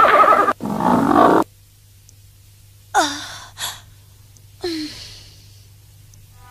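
Cartoon cat's wavering, animal-like vocal cry, which cuts off about half a second in and is followed by a rougher burst. After a lull come three short vocal sounds that drop in pitch.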